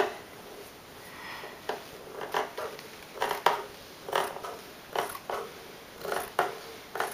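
Large fabric scissors snipping across thin, soft dress fabric: a steady run of short cuts about once a second, starting a couple of seconds in.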